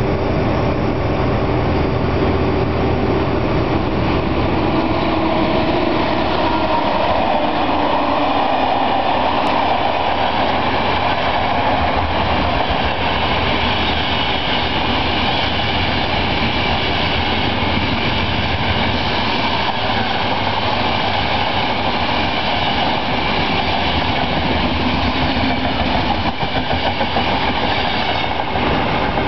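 Passenger train hauled by an SNCF BB 88500 locomotive passing through a station, a steady loud rumble of wheels on rails with some clickety-clack.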